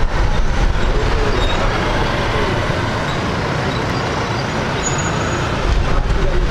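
Jet engines of a Boeing 787-10, Rolls-Royce Trent 1000s, running at taxi power: a steady rumbling noise.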